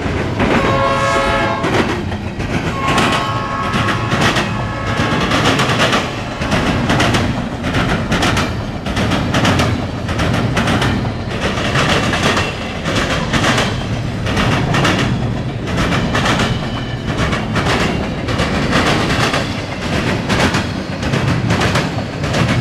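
Norfolk Southern intermodal freight train passing close by. The locomotive horn sounds twice in the first few seconds, then the wheels of the passing cars clack over the rail joints in a steady run of clicks over the rumble of the train.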